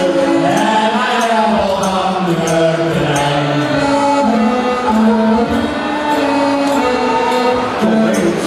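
Man singing a New Year's song in long held notes, with musical accompaniment and light, regular percussion ticks.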